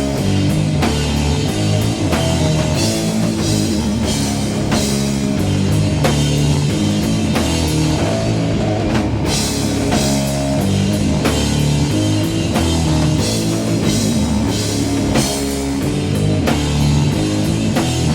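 Heavy metal band playing an instrumental passage between sung verses: distorted electric guitar and bass over a drum kit keeping a steady beat, with no vocals.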